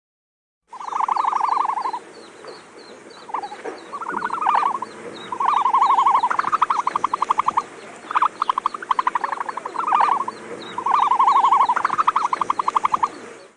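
Animal calling in a series of short croaking trills, each about a second long and made of rapid pulses at roughly ten a second, over a faint fast high ticking.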